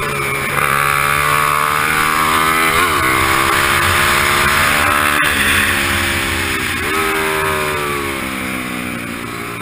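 Racing motorcycle's engine heard onboard at speed, its pitch jumping and gliding with gear changes and throttle.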